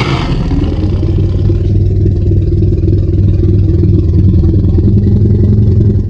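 Tyrannosaurus rex (Rexy) film sound effect: a long, low, rattling growl that starts suddenly with a harsh bright attack, holds steady for about six seconds, then cuts off abruptly.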